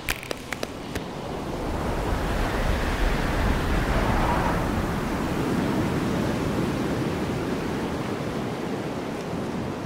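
Sea surf washing on a rocky shore with wind, a steady rush that swells in over the first couple of seconds and then holds. A few light taps sound in the first second.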